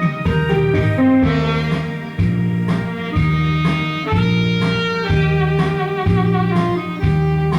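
Instrumental music from a backing track: guitar and strings over a bass line that repeats about once a second, with the saxophone lead mostly dropped out.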